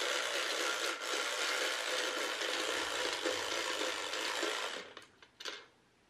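Small motorized toy mechanism whirring steadily, then stopping about five seconds in.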